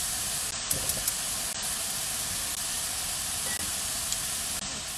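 Steak strips frying in a nonstick pan: a steady sizzle, with a few light clicks in the first second.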